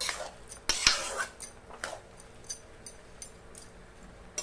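Spatula scraping and stirring sliced mushrooms in a kadai, a few strokes in the first two seconds, the loudest about a second in. It is followed by faint scattered ticks as the salted mushrooms heat and begin to release their water.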